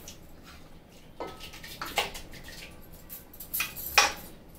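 Spoon knocking and scraping against a cooking pot as mutton curry is spooned in, several separate knocks with the loudest near the end.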